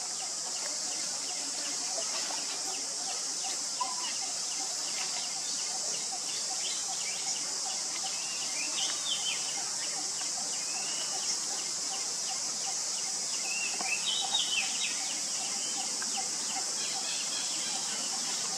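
Outdoor ambience: a steady high-pitched hiss with scattered short chirping calls, a cluster about nine seconds in and another near fourteen seconds.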